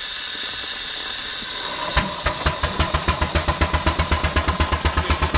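Miniature steam traction engine: steam hissing steadily, then about two seconds in the engine starts working and its exhaust beats evenly, about six chuffs a second, as it gets under way.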